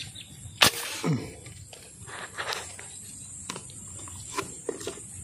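A single sharp airgun shot about two thirds of a second in, fired at a fish in the pond; the shot misses. A brief falling vocal exclamation follows, then a few light handling clicks.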